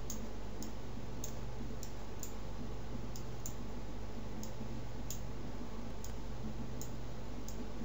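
Room tone of a desktop recording: a steady low hum and hiss, with faint, evenly spaced light ticks about twice a second.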